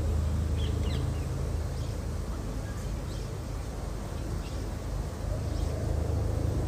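Open-air ambience: a steady low rumble, a faint murmur of voices, and a few short, high bird chirps.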